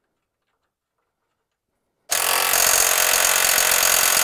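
Cordless power driver starting suddenly about two seconds in and running steadily, spinning the castle nut down onto the ball-joint stud to hold the track chain bracket.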